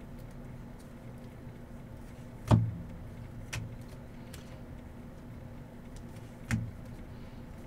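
Knocks from handling card packs and boxes on a table: a sharp knock about two and a half seconds in, a fainter one a second later and another sharp knock a second before the end, over a steady low hum.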